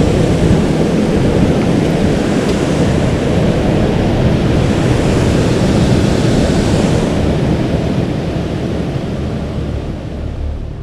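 Loud, steady rush of fast-flowing river water close to the microphone, easing a little near the end.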